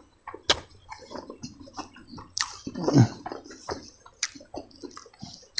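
Close eating sounds: wet chewing with lip smacks and tongue clicks, with a louder slurp falling in pitch about three seconds in.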